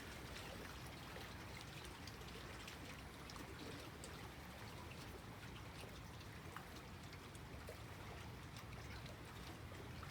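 Small lake waves lapping at the shore: a faint, steady wash of water with small splashes.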